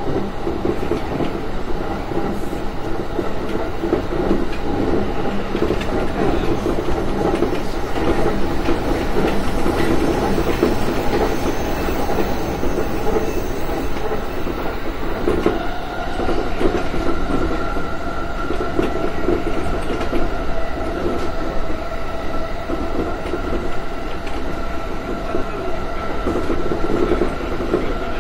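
Running noise inside a JR E235 series 1000 electric train car at speed: a continuous rumble of wheels on the rails. A steady high tone joins the rumble about halfway through.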